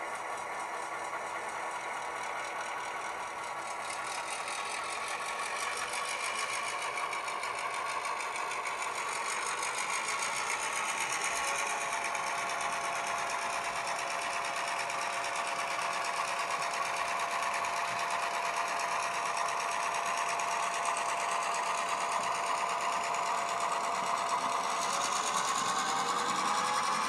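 Class 141 diesel engine sound from a LokSound V5 DCC sound decoder, played through the small speakers of a running model locomotive. The engine note rises and gets a little louder, and a steady tone holds for about thirteen seconds in the middle.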